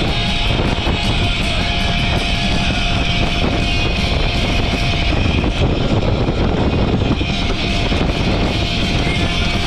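Background music over the steady, loud noise of a boat under way.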